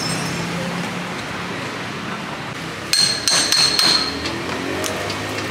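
A cleaver chopping through a raw crab on a wooden chopping board. About three seconds in there is a quick run of about five hard strikes, with a metallic ring from the blade.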